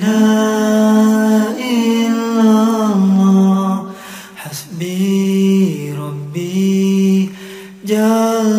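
A lone male voice chanting an Islamic dhikr without accompaniment, holding long notes that slide from pitch to pitch, with a brief breath about four seconds in.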